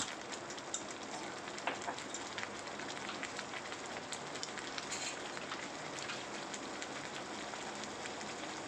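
Thick ground tomato masala gravy with butter and ghee simmering in a kadai on a gas flame: a steady sizzling hiss with many small scattered pops as it bubbles and spits.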